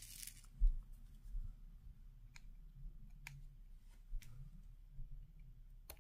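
A few light, separate clicks of tweezers on resin diamond-painting drills, roughly one a second, after a short rustle and a dull bump at the start.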